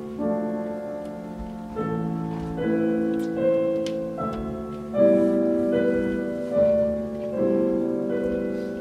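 Piano music: chords struck every second or so, each ringing and fading before the next.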